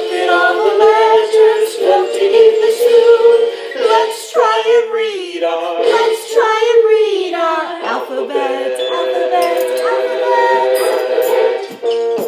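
A recorded children's song playing: a voice singing a melody over music.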